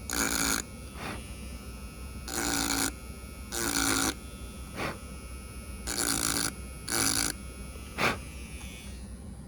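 Repeated scraping strokes on a circuit board, each about half a second long, as the solder mask is scraped off the copper to clean and enlarge the solder points, with a few light clicks of the tool in between.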